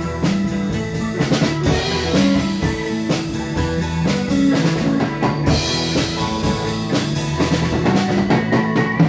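A rock band with drums, bass and electric guitar playing an instrumental passage, with steady hi-hat ticks at about four a second and a sharp hit right at the end.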